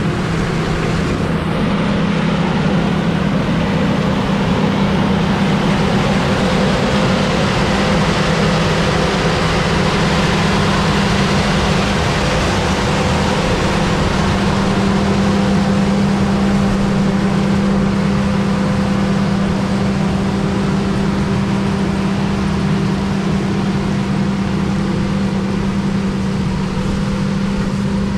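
Rice harvesting machine running steadily: a constant engine drone with a strong low hum under a wide wash of machinery noise, holding level throughout.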